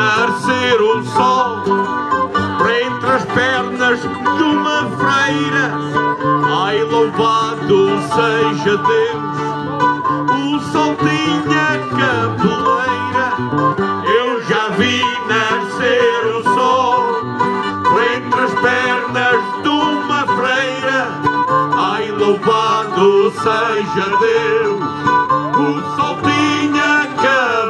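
Live folk music cutting in abruptly: several acoustic guitars strumming and picking a lively tune, with men singing into microphones.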